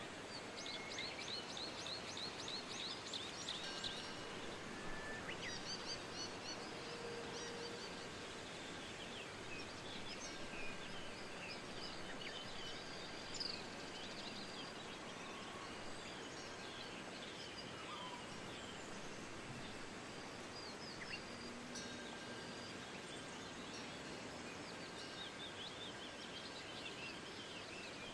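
Small songbirds chirping and trilling in short repeated phrases over a steady hiss of wind.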